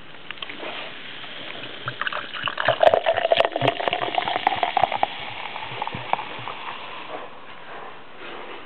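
A yellow-green drink poured from a bottle into a glass: a splashing pour that builds, runs strongest for a few seconds in the middle, then tapers off.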